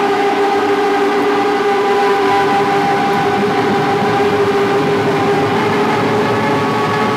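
A post-rock band's electric guitars playing live through amplifiers: a loud, steady wall of held notes.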